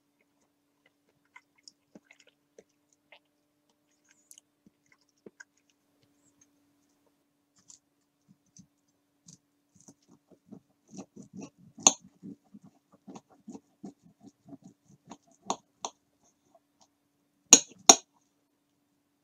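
Knife cutting through a crisp breaded chicken cutlet: a run of crunching crackles from about ten seconds in, with sharp clinks of cutlery on the ceramic plate, the loudest pair near the end. Only a few faint clicks before the cutting starts.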